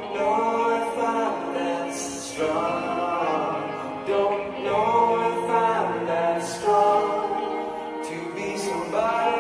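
Slow rock ballad played live: a male lead vocalist sings a held, sustained melody over electric guitar accompaniment.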